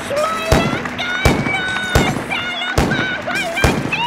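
Theatre sound score: a heavy percussive hit about every 0.8 s, five in all, under high wavering, gliding voice-like tones.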